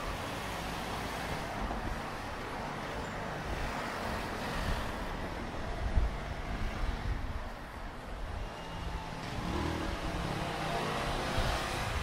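Cars driving past on a city street over a steady hum of traffic, with a brief thump about halfway through.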